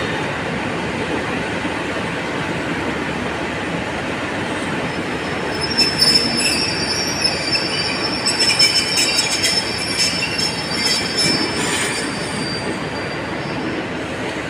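Arriving charter train hauled by a Class 47 diesel locomotive rolling slowly in with a steady rumble; from about six seconds in, a high steady squeal from the wheels, with crackling and fainter whines, runs until about twelve seconds in as the train slows.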